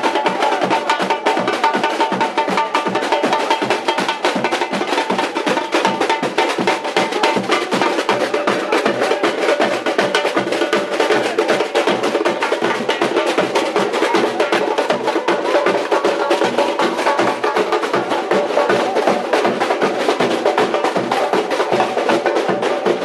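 Samba bateria of supporters playing a fast, dense drum rhythm, with many rapid strokes and other hand percussion layered on top.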